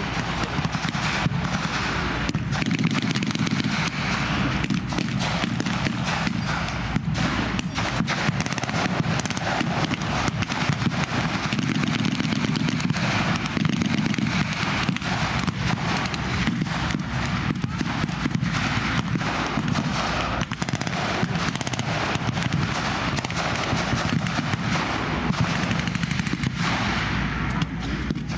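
Sustained reenactment gunfire: rapid, irregular cracks of blank-firing rifles and machine guns, many shots overlapping with no pause, over a steady low rumble.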